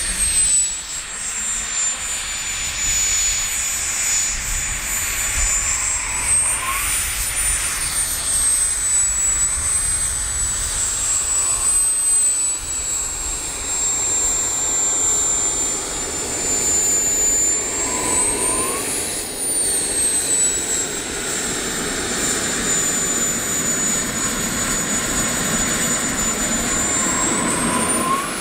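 Model gas-turbine engine of a CARF Models Mephisto RC jet running, a steady jet roar under a loud high whine that swoops up and back down in pitch three times.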